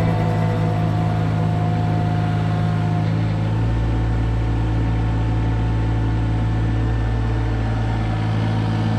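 John Deere mini excavator's diesel engine running steadily while the machine digs a trench.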